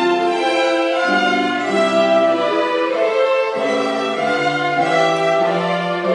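Small string ensemble of violins playing a slow piece, with bowed notes held in several parts at once and changing about every half second to a second.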